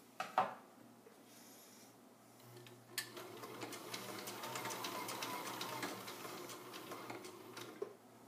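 Electric sewing machine stitching through tubular webbing: it starts about two and a half seconds in, runs steadily with a rapid needle clatter for about five seconds, and stops near the end. A couple of sharp clicks come right at the start.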